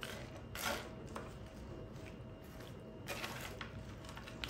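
Wooden spoon stirring coarse bulgur, chickpeas and chopped vegetables in a bowl: grainy rustling scrapes with small clicks, one about half a second in and another about three seconds in.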